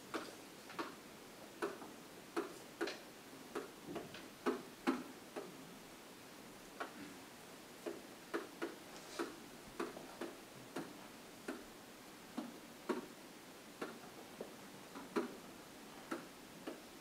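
A pen tapping and clicking against the hard surface of an interactive whiteboard as words are handwritten. The sharp clicks come at an uneven pace, one or two a second, with short pauses between words.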